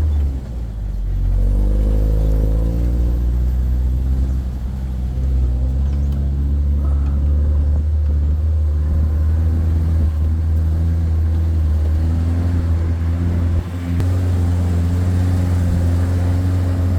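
4x4 truck engine running under load as heard riding on the truck: a loud, steady low drone whose pitch steps up and down, with brief drops in loudness about half a second, four and a half seconds and just over thirteen seconds in, typical of gear changes.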